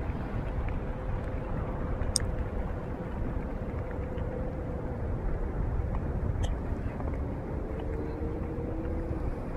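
Steady low rumbling noise of wind on a phone's microphone, with a faint steady hum underneath and two tiny clicks, about two seconds in and again near six and a half seconds.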